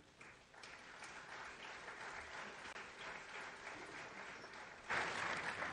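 Audience applauding, a dense patter of clapping that swells louder near the end.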